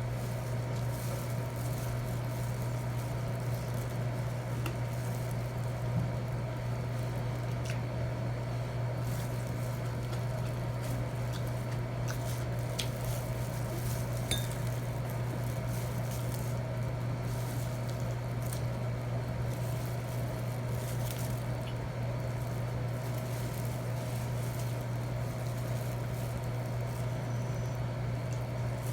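Scattered light clinks of cutlery against a plate during a meal, over a steady low hum.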